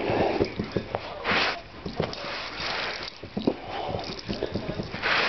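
Miniature schnauzer puppy playing with a person's hands on carpet: snuffling breaths with two sharp huffs, one a little over a second in and one near the end, over many soft thumps and scuffles of paws and hands.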